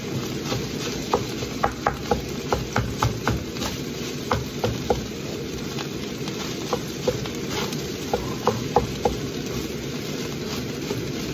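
Metal spatula stirring leftover rice in an enamelled pan, with irregular scrapes and light knocks against the pan, over a steady frying sizzle. The knocks come less often around the middle.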